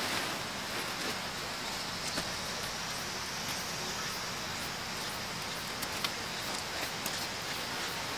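A tent pole being fed through the fabric sleeve of a tent, with faint fabric rustling and a few light clicks in the second half, over a steady high hiss.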